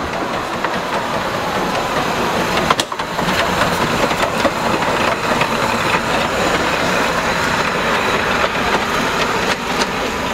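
Metre-gauge steam tank locomotive No. 403 passing close by on the next track, a steady run of engine and wheel-on-rail noise with a few clicks. A single sharp knock about three seconds in.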